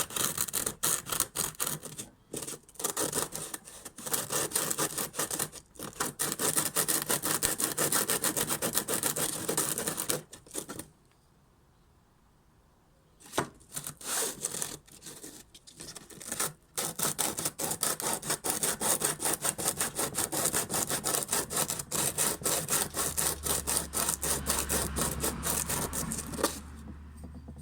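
Shimano BR-RS405 disc brake pad rubbed by hand on sandpaper, a quick run of scraping strokes. It stops for a couple of seconds near the middle, then starts again. The light sanding takes the glaze off the pad surface to cure brake squeal.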